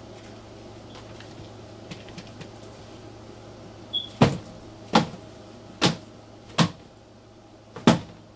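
Five sharp knocks in the second half, roughly a second apart, after a few faint clicks: a dubia roach colony's furnishings being banged against a container to knock the roaches off.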